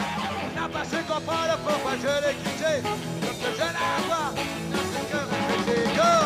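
Live rock and roll: a male singer sings over a full band.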